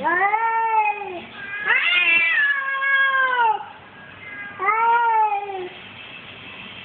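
A cat meowing three times in long, drawn-out calls, each rising then falling in pitch; the middle call is the longest, about two seconds.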